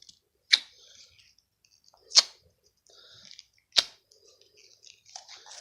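Slime being pressed and pulled, with three sharp pops about a second and a half apart and faint crackling between them.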